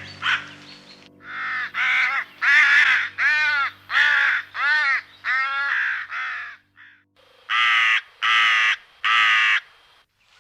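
A bird calling repeatedly: about eight short calls in quick succession, then after a brief pause three more.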